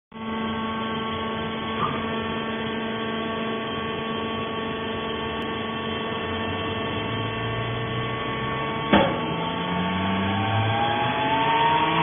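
Steady hum of a vertical hydraulic baler's electric motor and pump running, with several fixed tones. There is a light knock near two seconds and a sharp bang about nine seconds in, and from about seven seconds a lower tone comes in and climbs in pitch, growing louder near the end.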